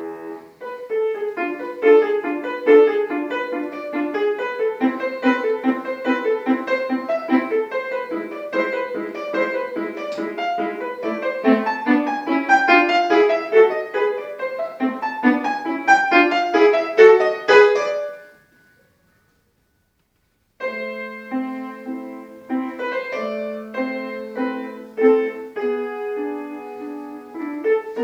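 Solo piano playing a classical piece, with fast rising runs that stop about two-thirds of the way in. After a silence of about two seconds the playing starts again with steadier chords.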